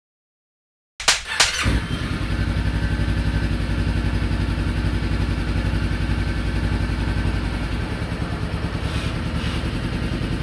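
A 2011 Suzuki V-Strom's V-twin engine starts about a second in, with two sharp clicks as it catches, then settles into a steady idle with an even pulse.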